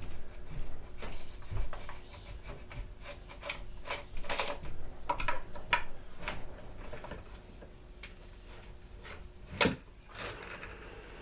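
Tools and plastic parts of a leaf blower clicking, scraping and rattling while it is being taken apart, with one sharp knock about ten seconds in.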